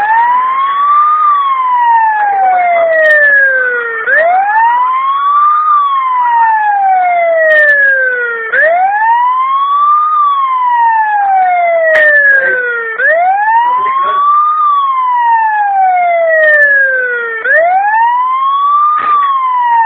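Motion-alarm siren of a wireless 360-degree security camera, set off by movement: a loud wailing tone that sweeps up quickly and glides down slowly, repeating about every four and a half seconds.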